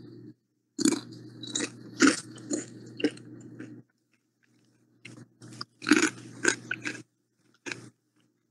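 Someone chewing crunchy chips: irregular bursts of crunching, with a pause about four seconds in before the chewing resumes.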